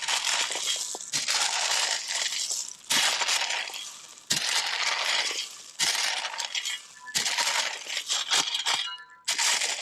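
Shovel scooping gravel and pouring it into retaining-wall blocks, a rattling pour of stones about every one and a half seconds, seven times.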